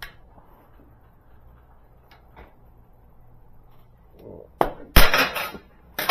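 Metal tools and parts clinking and clattering against each other and the lift deck. A few light clicks come first, then a quick run of sharp, ringing metal clanks about five seconds in.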